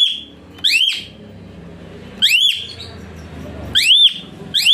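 A bird calling loudly and repeatedly: clear whistled calls that rise and then fall in pitch, some ending on a short held note, about one every second.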